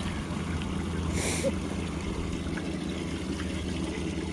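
Water lapping and trickling against a fishing boat's hull over a steady low hum, with a short hiss about a second in.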